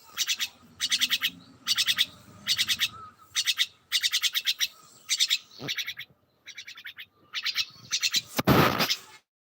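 Small birds chirping in short rapid bursts of high notes, a burst about every half second to a second. A brief, loud rustling noise comes near the end.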